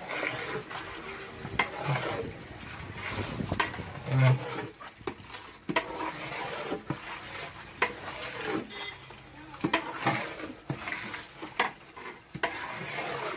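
A long metal ladle stirs a large batch of chicken pieces frying in masala in a big aluminium pot. The ladle scrapes and clanks against the pot at irregular intervals.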